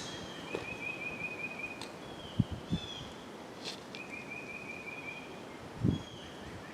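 Small birds calling over and over, short clear notes and a buzzy trill. Three short dull thumps: two close together a couple of seconds in and one more near the end.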